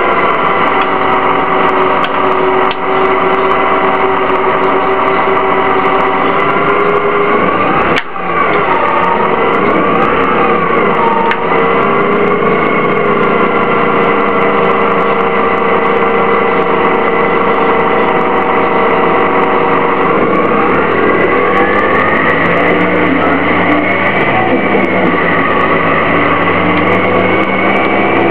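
Detroit Diesel Series 50G natural-gas engine of a 2004 Orion VII CNG transit bus running steadily, with a sharp click and a brief dip and rise in pitch about eight seconds in. After about twenty seconds the pitch climbs and then wavers.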